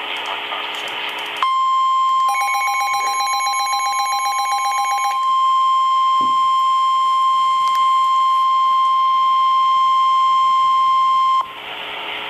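NOAA Weather Radio warning alarm tone: a single steady 1050 Hz tone lasting about ten seconds, which cuts off sharply. Radio static hiss comes before and after it, and a rapidly pulsing tone is layered over it for about three seconds near its start.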